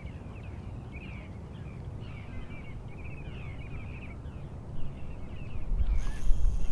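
Birds chirping and chattering in quick, short calls, over wind rumbling on the microphone that grows stronger near the end.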